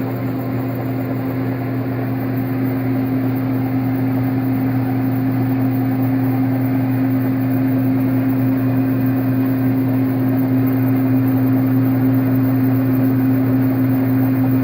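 Metal lathe running steadily: a constant machine hum with one strong steady tone, growing slowly louder.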